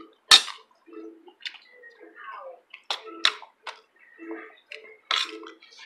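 Close-up eating noises: chewing and lip smacking, with a sharp click about a third of a second in and a few shorter clicks later.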